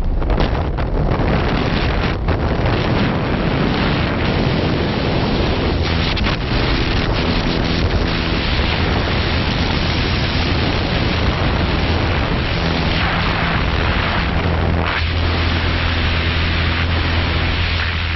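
Loud rushing wind buffeting the microphone, with a steady low drone underneath, during a skydive.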